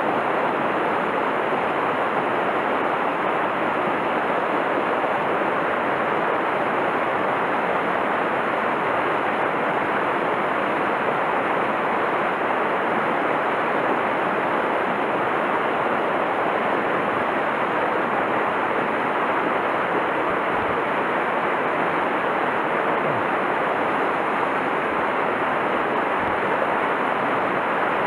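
Whitewater rapids of a mountain stream rushing over boulders: a steady, unbroken wash of water noise.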